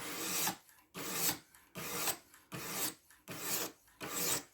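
Diamond sharpening stone, the 800 grit of a guided sharpener, stroked along the edge of a 14C28N steel knife blade: about six even rasping strokes, each about half a second long, in a steady rhythm.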